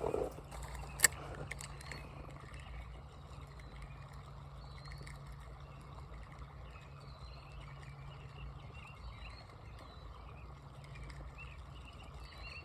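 Outdoor creekside ambience: a steady low rumble with many faint, scattered high chirps, and one sharp click about a second in.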